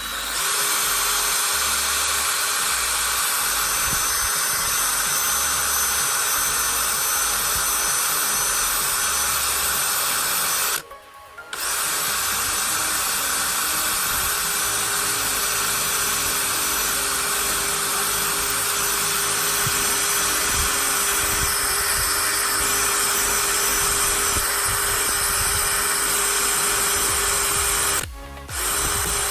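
18-volt cordless drill running steadily, its bit grinding into an iPhone's screen. It stops briefly about a third of the way through and again near the end.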